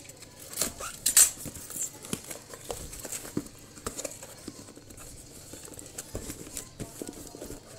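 Box cutter slicing packing tape on a cardboard box, then cardboard flaps and plastic wrap rustling and scraping as the box is opened and the inner box is handled. A string of short clicks and scrapes, the sharpest about a second in.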